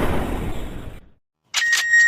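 Edited sound effects: a noisy rumble fades out within the first second, then sudden silence, then a steady high electronic beep-like tone cuts in about one and a half seconds in.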